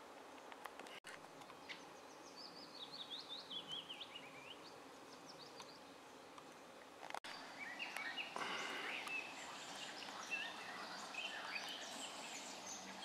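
Small songbirds singing in woodland over a faint steady hiss: first one bird's falling run of quick notes, then, from about seven seconds in, a busier mix of several birds' chirps and songs.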